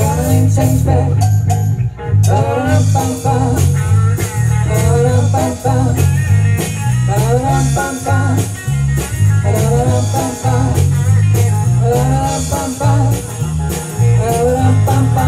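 A live rock-blues band playing: electric guitar, bass guitar and drums with a steady beat, and a woman singing.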